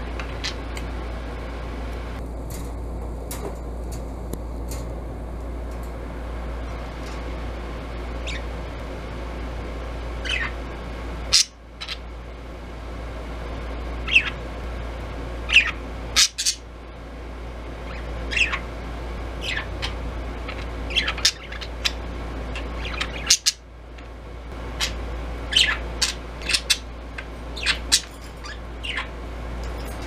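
Budgerigar chirping: short, sharp chirps, single or in quick runs, sparse at first and coming much more often in the second half, over a steady low hum.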